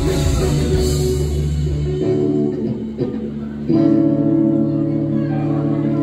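Live rock band with electric guitars, bass guitar and drum kit playing the closing bars of a song. The bass and drums drop out about two seconds in, and just before the four-second mark a held electric guitar chord starts and rings on steadily.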